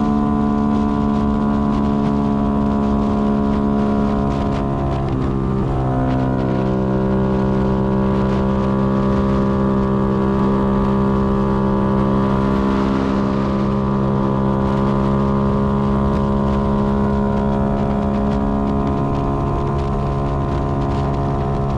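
Yamaha Y15ZR's single-cylinder 150 cc four-stroke engine running at steady cruising revs while riding, heard from the rider's seat. The engine note dips briefly about five seconds in, then holds steady again.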